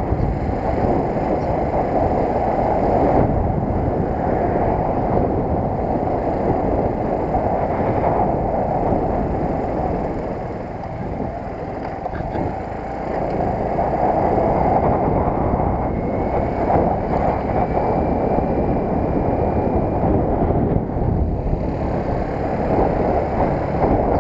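JSD100 underbone moped running along the road, its engine under heavy wind rush on the microphone. The noise eases for a few seconds about ten seconds in.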